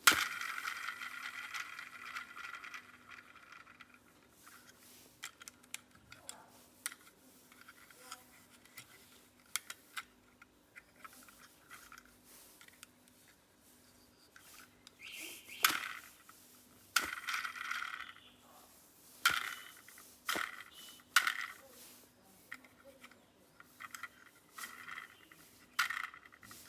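Plastic toy weapon parts and packaging being handled: a string of irregular light clicks, knocks and short scrapes, with a longer rustling scrape right at the start.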